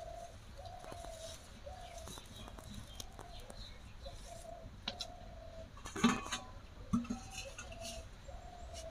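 A bird giving a short call over and over, about two a second, in the background. Two louder, brief sounds cut in about six and seven seconds in.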